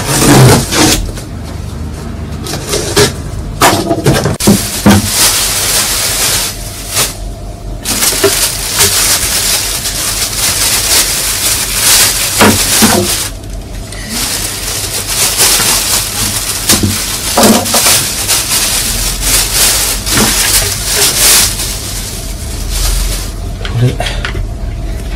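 Cardboard box and plastic wrapping being handled as a white plastic bucket is unpacked: steady crackling and crinkling of the plastic film, with scattered knocks and scrapes of the box, the bucket and its lid.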